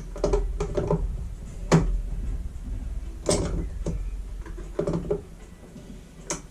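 Plastic blower parts being handled and fitted together: a few sharp clicks and knocks spread about a second and a half apart over low handling rumble.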